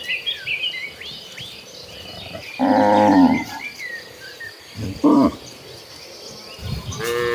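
Cattle mooing: one loud, drawn-out moo about a third of the way in, a short call a couple of seconds later, and another moo starting near the end. High, faint chirping runs underneath between the calls.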